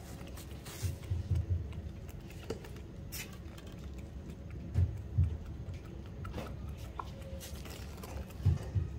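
Desi rooster pecking grain off a concrete floor: short runs of quick pecks about a second in, near the middle, and near the end.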